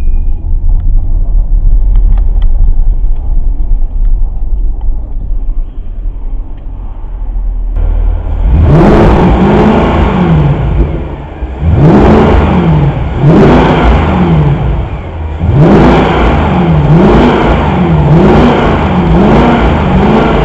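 Mercedes CLK 63 AMG's 6.2-litre V8 idling with a low rumble, then about eight seconds in it is blipped up and let fall back repeatedly, roughly one rev every second and a half, while the fuel pressure is watched under load. The car has a failing fuel pump and random misfires.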